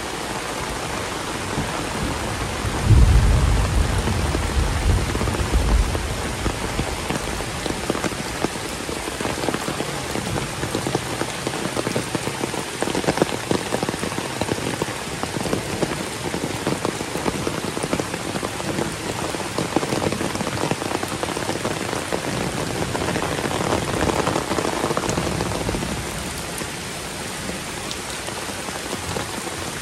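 Heavy rain pouring steadily, with a low rumble of thunder starting about three seconds in and dying away over a few seconds.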